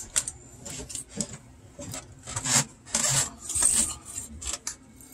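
Pull cord of a vintage talking G.I. Joe's voice box being drawn out and wound back, the mechanism rasping and clicking in several short bursts. No voice plays: the record's needle is barely touching the record.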